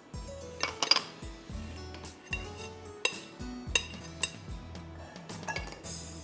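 Soft background music with a steady low beat, over scattered clinks and knocks of utensils and dishes against glass mixing bowls.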